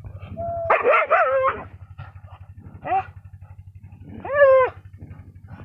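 A dog whines and then gives a cluster of high barks about a second in, a single short bark near three seconds, and a longer, drawn-out bark a little after four seconds.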